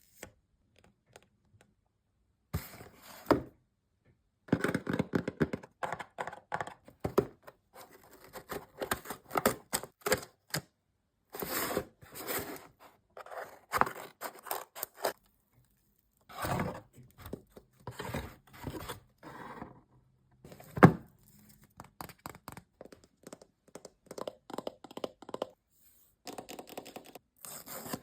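Hands unboxing a phone, handling its box and packaging: irregular scraping, tearing and thunks, with one sharp knock about three-quarters of the way through.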